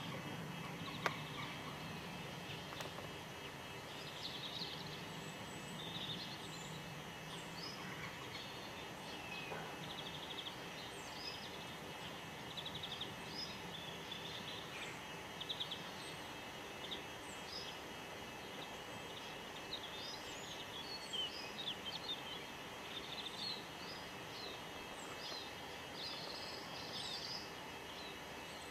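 Small birds chirping and calling in short, scattered notes over steady outdoor background noise, with one sharp click about a second in.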